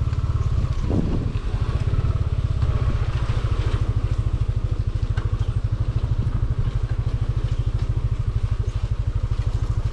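Motor scooter's engine running slowly at low speed, a steady low, even pulsing beat.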